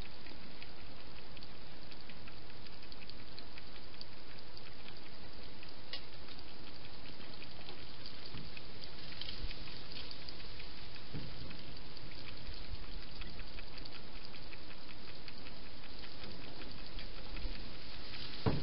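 Steady hiss from a night-vision garden camera's microphone, with faint irregular crackly clicks throughout, a few louder ones about nine or ten seconds in.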